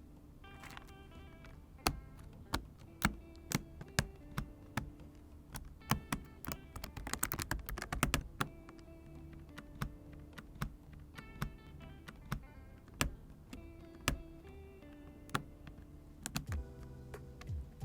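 Mechanical switches and keycaps being pressed into a Ninja 108 PRO hot-swap mechanical keyboard: separate sharp clicks and snaps at irregular intervals, with a quick flurry of clicks about halfway through. Background music plays under it.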